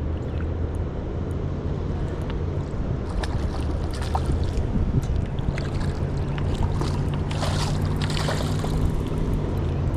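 A steady low hum over a running-water rush, with scattered light clicks and rustles through the middle.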